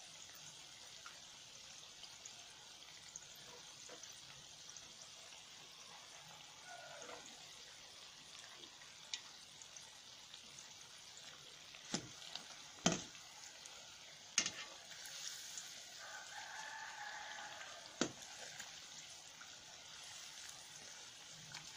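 Vegetable rolls deep-frying in hot oil in a wok: a steady, soft sizzle. A few sharp clicks of a spatula against the pan stand out about halfway through.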